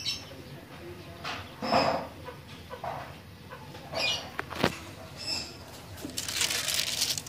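Birds calling in short, scattered chirps and clucks, with a sharp click partway through and a longer rustle near the end.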